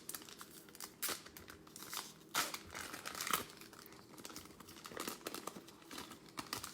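Foil wrapper of a Prizm football trading-card pack crinkling as it is torn open and handled, in irregular crackles.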